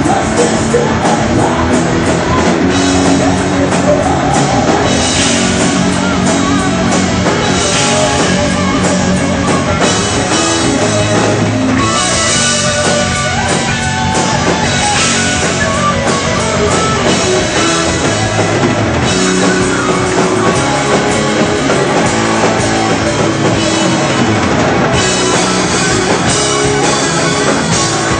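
Heavy metal band playing live and loud: electric guitars over a drum kit with repeated cymbal crashes.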